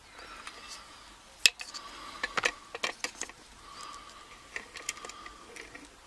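Small vise being adjusted by hand around a padlock: scattered light metallic clicks and knocks of the jaws, threaded rod and lock body, the sharpest a single click about one and a half seconds in.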